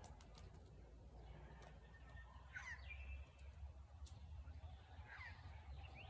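Near silence with a faint low rumble, broken twice by a distant bird call, about two and a half seconds in and again about five seconds in, each short and sweeping quickly in pitch.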